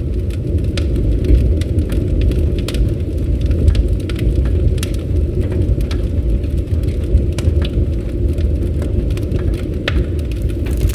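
Campfire burning: a steady low rush of flames with frequent small, sharp crackles from the wood.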